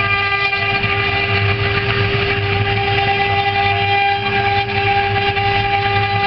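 Four electric spindles of a multi-spindle CNC relief-carving router running at speed and cutting wood together: a steady, loud whine of several held tones over a low hum.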